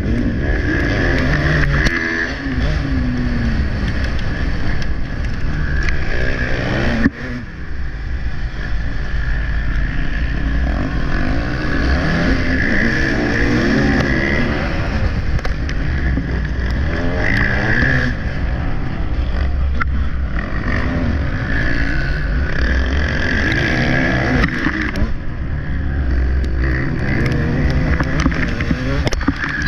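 Motocross bike's engine revving hard, its pitch rising and falling over and over as the rider works the throttle and gears. The throttle is cut briefly about seven seconds in.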